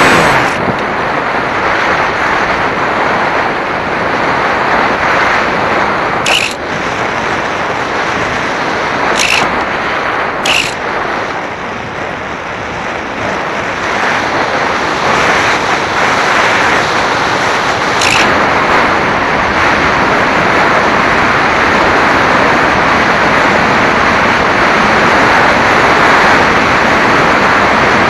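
Wind rushing over the microphone of a camera riding on a flying RC model plane: a loud, even roar of air, with four short ticks along the way, growing louder in the last part.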